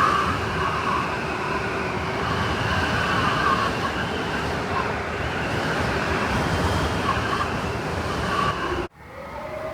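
Strong blizzard wind blowing steadily, a roar with wavering high whistles over it. Just before the end it cuts off abruptly and gives way to quieter wind with a low howl that rises and falls.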